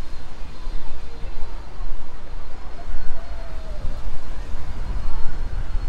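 Low, uneven rumble on the microphone of a handheld camera carried on a walk outdoors, swelling and dipping about once a second, with only faint background sounds above it.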